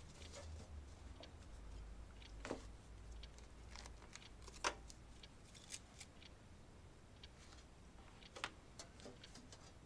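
Faint handling sounds of a paper notebook and small objects on a kitchen counter: a few scattered sharp clicks and taps, over a low steady hum.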